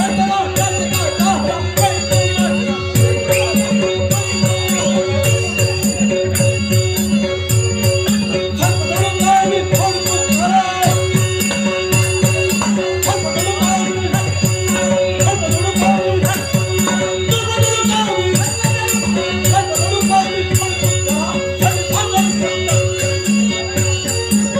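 Folk music with a hand drum beating a steady rhythm, fast metallic jingling percussion and steady held tones underneath.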